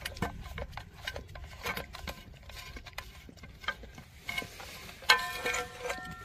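Dogs and puppies lapping milk from a shallow metal pan, a quick run of wet licking clicks. About five seconds in a louder knock rings briefly.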